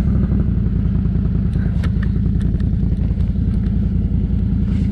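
Can-Am Outlander XMR ATV's V-twin engine running steadily as the quad rides through deep snow, with a few light clicks over it.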